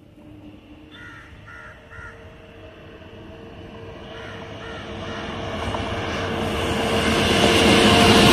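A WAP-7 electric locomotive hauling a passenger express approaches. Its running noise and wheel rumble build steadily louder from about halfway through and are loudest as it reaches the spot. Crows caw a few times in the first seconds.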